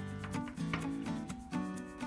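Background music: held pitched notes over a quick, regular beat.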